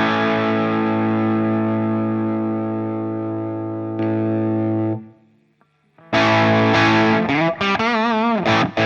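Harley Benton SC-DLX electric guitar played with overdrive through a Hotone Ampero One on a Mesa Boogie Mark IIC+ preset. A distorted chord rings and slowly fades, is cut off about five seconds in, and after a second of silence a new phrase starts, on the middle pickup position, with vibrato-wavering notes and short stabbed notes.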